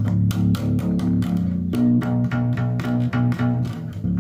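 Instrumental passage of an alternative rock song: a bass guitar riff over a steady drum beat, with no singing.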